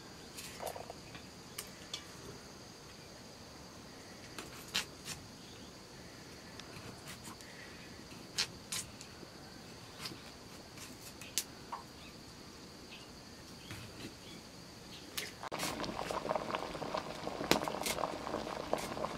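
Scattered small sharp clicks of raw potato being cut against an upright curved blade, over a faint steady insect drone. About fifteen seconds in, a louder dense crackling and bubbling of a pot boiling over a wood fire takes over.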